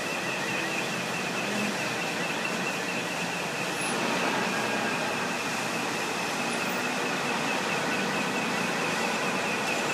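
Bulldozer working, its engine running steadily: a constant noisy rumble and hiss with a thin high whine over it, growing a little louder about four seconds in.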